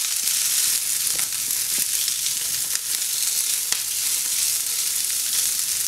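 Onion, capsicum, green chillies and garlic sizzling in hot oil in a frying pan while being stirred with a silicone spatula. The steady sizzle has a few light clicks of the spatula against the pan.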